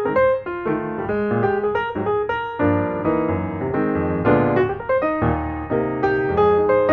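Background piano music: a steady stream of quick piano notes.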